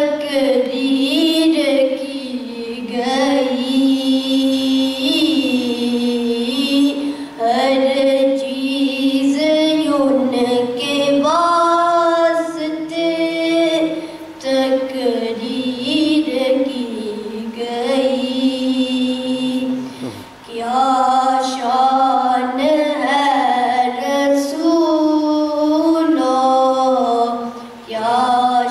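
A boy singing an Islamic devotional song unaccompanied into a microphone, holding long notes with ornamented, wavering turns of pitch. There is a short break for breath about twenty seconds in.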